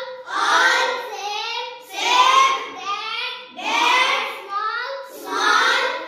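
A class of children reading words aloud in unison, in a sing-song chant, with a new phrase about every second and a half.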